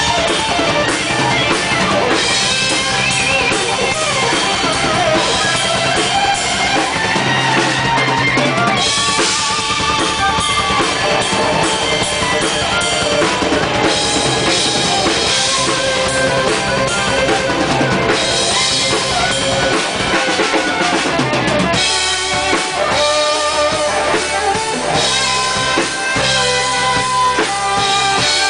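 Progressive metal band playing live at full volume: electric guitars, an acoustic guitar and a drum kit with kick and snare driving the beat. The arrangement changes about three-quarters of the way through.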